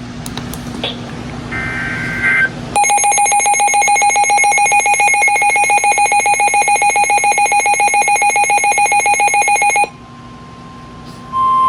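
Weather radio alert tones. A brief screech of data tones, then a loud, fast-pulsing electronic alarm beep for about seven seconds. About ten seconds in, a steady single-pitch warning alarm tone starts, and it jumps much louder near the end, heralding a new severe thunderstorm warning.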